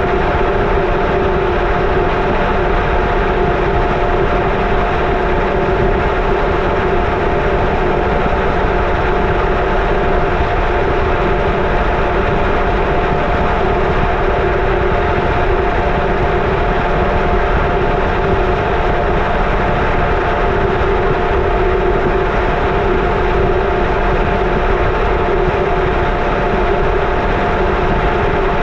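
Indesit washing machine drum spinning at a steady high speed, heard from a camera inside the drum: a loud, even mechanical hum and motor whine with several steady tones that hold the same pitch.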